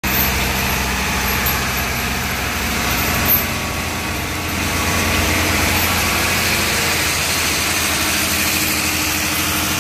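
Railway track-laying machine's engine running steadily, with a short knock about three seconds in.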